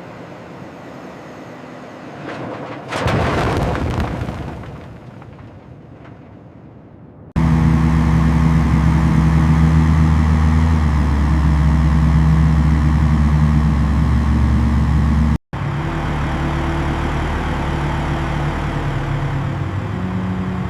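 A loud rush of noise about three seconds in that fades away over a few seconds. Then, suddenly, the steady low drone of heavy machinery running, cut off for an instant near the end before carrying on.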